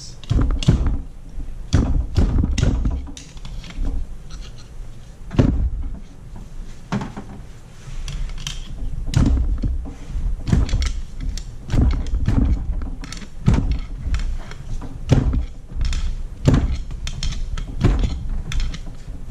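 Metal tools knocking and clanking irregularly against a BMW E30 limited-slip differential as it is worked apart, roughly one or two sharp knocks a second.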